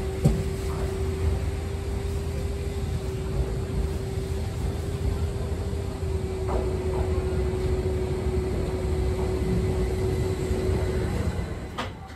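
Keihan 800 series electric train at the station: a steady low rumble with a constant hum that stops about a second before the end.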